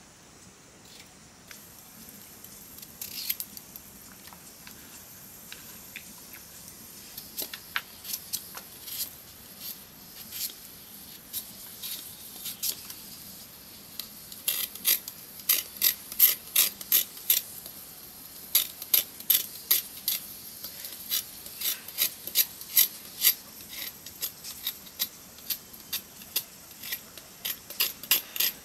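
A large kitchen knife paring the skin off a raw potato held in the hand: a string of short, crisp scraping strokes. They come sparsely at first and from about halfway on run quicker, several a second.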